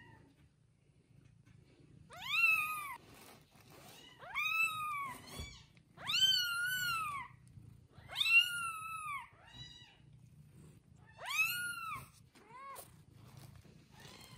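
Day-old newborn kitten crying in a run of high, arching mews, each rising then falling, about one every two seconds: five strong cries and two shorter, fainter ones.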